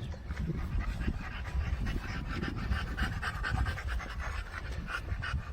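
A dog panting quickly and steadily, over a low rumbling noise.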